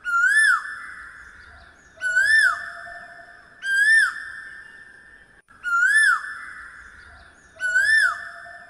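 A whistle-like note that slides up and then down, repeated five times about every two seconds, each note trailing off in a long fading tail.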